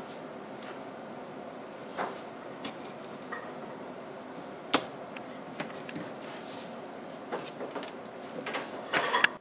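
Scattered taps and clicks of an awl being pushed through stacked cardboard puppet pieces and of the pieces being handled on a cardboard sheet, busier near the end, over a steady background hiss.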